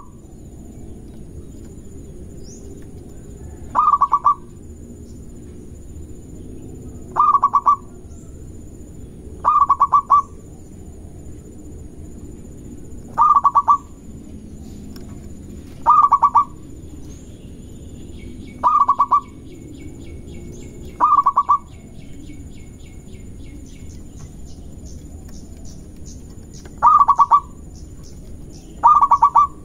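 Zebra dove (perkutut) cooing: about nine short phrases of rapid pulsed notes, one every two to three seconds.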